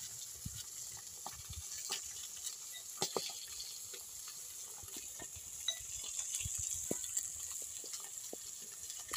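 Small irregular clicks and taps as garlic cloves and onions are cut on a boti blade, over a steady high hiss.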